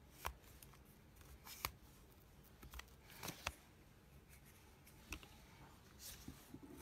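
Plastic selfie-stick tripod handled while its folding legs are opened out: faint handling noise with several sharp clicks spread through it.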